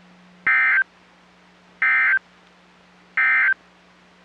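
NOAA Weather Radio EAS end-of-message code: three short, identical bursts of buzzy two-tone digital data about 1.3 seconds apart, over a faint steady hum. The bursts mark the end of the warning broadcast.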